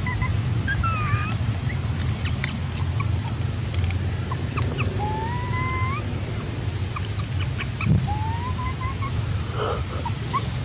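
Baby long-tailed macaque crying to nurse: a few thin whimpering cries that rise in pitch, the longest about a second long in the middle, over a steady low background rumble.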